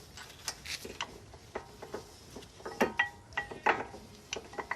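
Metal brake parts clicking and clinking as brake pads and their shims are worked by hand into a disc brake caliper, in irregular taps, a few ringing briefly, the loudest in the middle.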